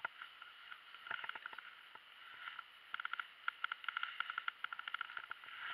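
A quick run of light clicks and taps, several a second, starting about halfway through, over a faint hiss: handling noise around a baitcasting rod and reel in a plastic kayak hull.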